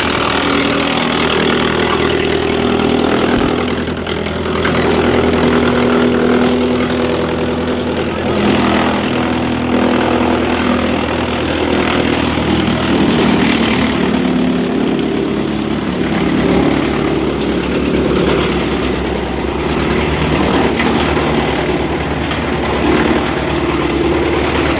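Wood chipper machine running steadily and loudly: a continuous machine hum under a broad rushing noise that swells and eases every few seconds.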